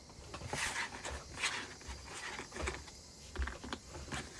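Cardboard jigsaw puzzle pieces being handled on a table: scattered light clicks and brief rustles.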